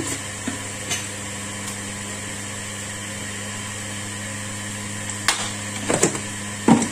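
A steady hum, like a running kitchen appliance or fan, with a few sharp knocks of a metal ladle against a wok near the end.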